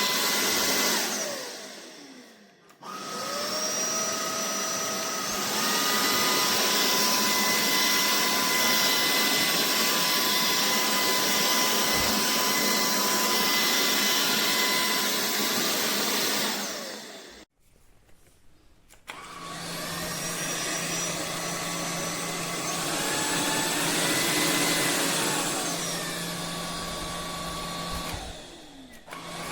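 AlloyMove cordless stick vacuum running with a high motor whine and a rush of air, switched off and on again several times. Soon after each start the whine steps up in pitch, and about two-thirds of the way through it rises and falls once more before the motor winds down.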